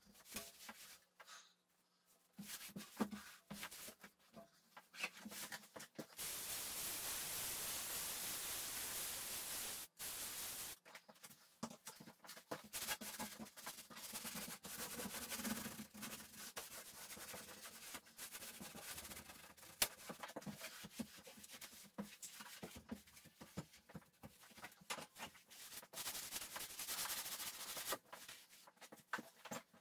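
Faint, irregular rubbing strokes of a cleaning pad scrubbing and wiping a painted wooden door, with a steady hiss for a few seconds near the start.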